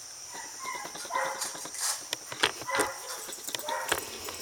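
Dog barking, a string of short barks starting about a second in, over steady insect chirring.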